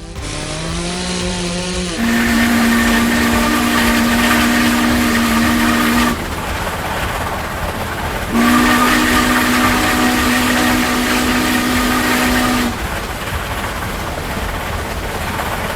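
Heavy truck air horn sounding two long blasts of about four seconds each, a deep two-note chord, over a steady rumble and hiss of running vehicles.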